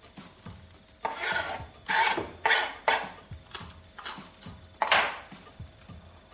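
Kitchen knife scraping and knocking inside a yellow bell pepper and against a cutting board as the seeds and membranes are cut out: about seven loud rasping strokes between one and five seconds in.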